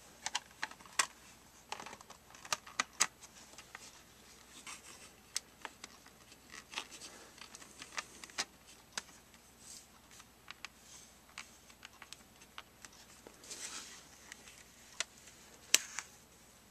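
Plastic back cover of a Fusion5 tablet being fitted and pressed onto its frame: scattered sharp clicks and taps of the plastic case, with a few short rubbing handling noises and the loudest click near the end.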